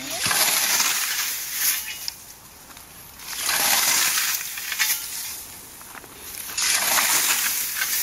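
Cradle scythe cutting ripe standing wheat: three long swishing, crunching strokes through the stalks, about three seconds apart.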